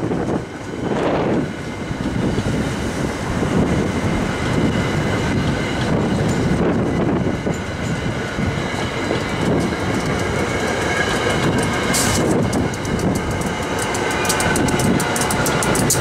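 SEPTA Comet push-pull passenger coaches rolling past, with a steady rumble of wheels on rail and a run of rhythmic clicks over the rail joints in the last few seconds, as the train is pushed by an AEM-7 electric locomotive at the rear.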